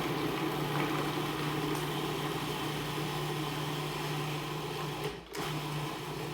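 Food processor motor running steadily, its blade chopping onion, garlic, ginger and apple into a coarse puree. It stops for a moment about five seconds in, then runs again.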